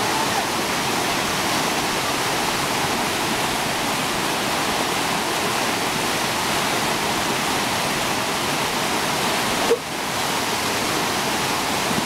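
Muddy floodwater from a swollen mountain stream rushing over rocks in a steady, loud rush, briefly cut off about ten seconds in.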